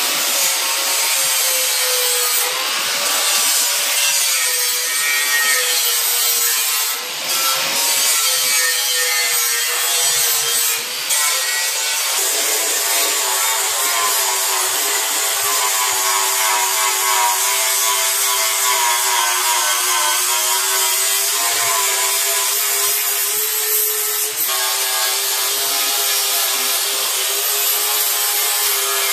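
Handheld electric angle grinder running against a steel car frame, with a steady high motor whine over the rasp of the disc on metal. It eases off briefly twice, around seven and eleven seconds in, and its pitch settles a little lower about twelve seconds in.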